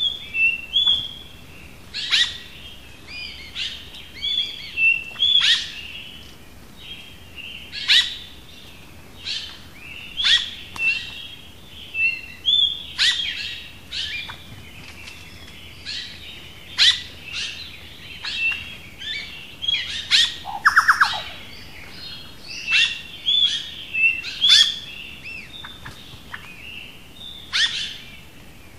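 Several small birds singing and calling: a steady run of short, sharp chirps and quick whistled notes from more than one bird, overlapping. About two-thirds of the way through comes a brief, louder rattling call.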